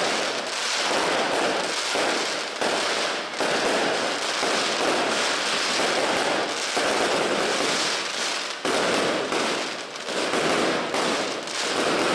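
Daytime fireworks: a dense, rapid run of firecracker bangs and crackling, going off almost continuously with a few brief lulls.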